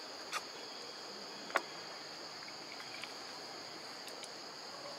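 Steady high-pitched insect chorus, typical of crickets or cicadas. There is a faint click near the start and a sharper single click about a second and a half in.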